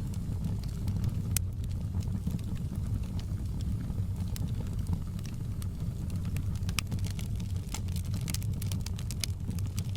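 Wood fire in a fireplace crackling, with many sharp pops and snaps over a low steady rumble of the flames. The crackles come thicker in the second half.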